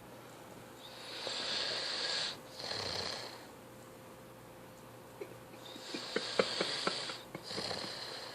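Teenager snoring in his sleep: two long noisy breaths a few seconds apart, the second one rattling.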